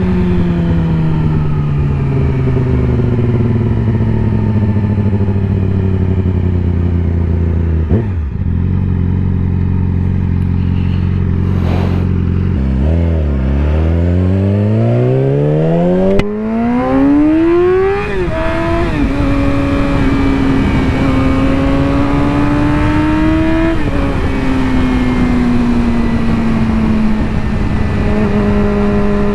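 2020 Yamaha R6's inline-four through an M4 slip-on exhaust with the catalytic converter deleted, riding on the road. Revs fall away and hold steady at first, then about halfway through climb steeply under hard acceleration for several seconds, drop sharply at a gear change, rise gently, and drop again before settling into steady cruising.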